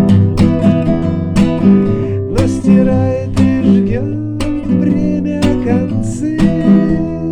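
Acoustic guitar strumming chords in a steady rhythm, with a strong strum about once a second.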